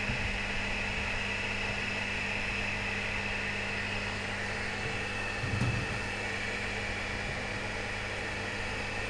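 Air-to-water generator (acqualizzatore) running: a steady electrical hum with an even fan-like whir. A brief low knock comes a little past halfway.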